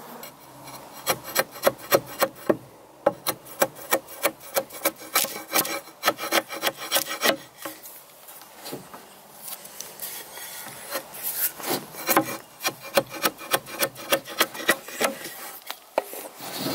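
Hand tool cutting and scraping a red alder log while shaping a timber-frame joint: quick, uneven strokes, several a second, with a short pause about halfway through.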